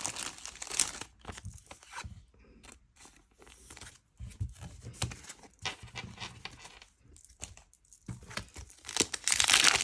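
Intermittent rustling, crinkling and small clicks of a plastic card sleeve and foil booster-pack wrapper being handled as a Pokémon card is slid into a sleeve. The crinkling gets louder near the end.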